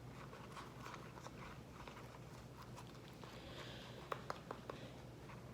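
Faint sticky clicks and soft squishes of homemade corn-syrup slime being worked by hand, with a few sharper clicks about four seconds in. The slime is still unactivated and sticky.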